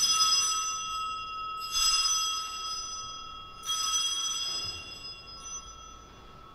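Altar bell rung three times, about two seconds apart, each ring a clear high tone that fades slowly. These are the rings at the elevation of the chalice after the consecration at Mass.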